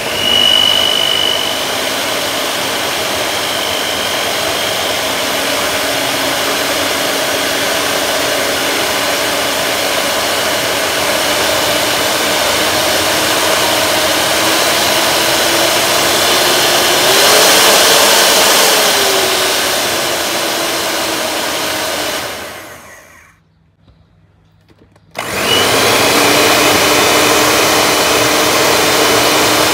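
Electric hand mixer on an Olsenmark stand mixer base running with its beaters spinning in an empty steel bowl, a steady motor whir. About two-thirds through, its pitch briefly rises and falls back; then it winds down and stops, and two seconds later starts running again.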